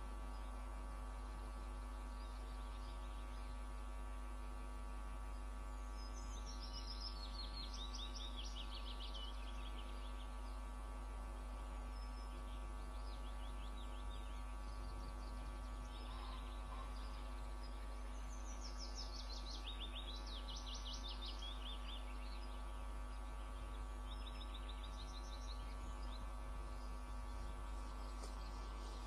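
Steady electrical hum on the webcam's audio feed, with a small bird singing three short, high, descending trilled phrases in the background.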